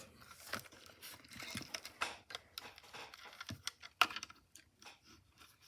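Plastic case of a 1950s RCA transistor radio being handled: scattered small clicks and rubbing, with one sharp click about four seconds in.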